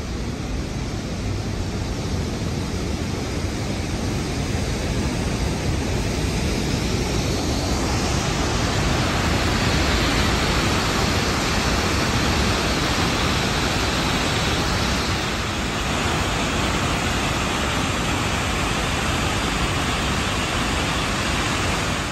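Steady roar of the Sunwapta River's whitewater plunging over Sunwapta Falls into the gorge. It grows louder and fuller about eight seconds in.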